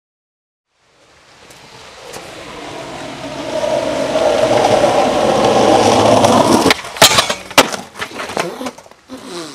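Skateboard wheels rolling on asphalt, fading in and growing steadily louder, then cutting off suddenly. A run of sharp clattering knocks follows as the board and rider hit the ground in a fall.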